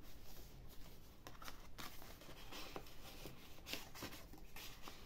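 Paper and card rustling: card tags handled and slid back into a paper pocket in a handmade junk journal, in a series of brief soft scrapes.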